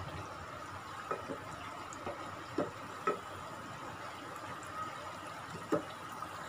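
Hot oil sizzling steadily around semolina cutlets frying in a pan, with a few short taps as a wooden spatula turns them.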